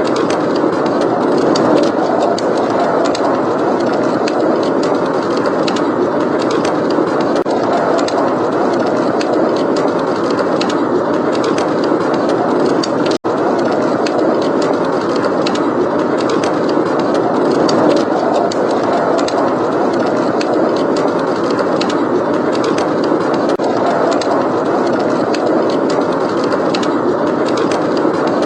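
Steady blizzard wind blowing, with a fireplace crackling over it in small, scattered pops. The sound cuts out for a split second about halfway through.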